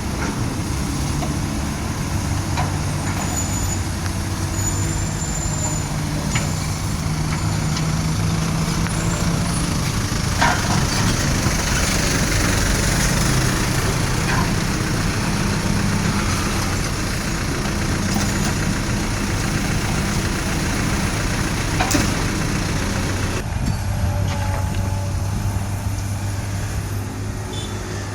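Heavy trucks' diesel engines running steadily at low revs, with a couple of sharp clicks along the way.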